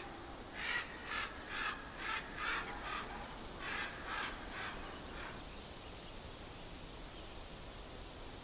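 A bird giving a run of harsh calls, about two a second: six calls, a short pause, then four more, ending about five seconds in. A faint steady hiss lies underneath.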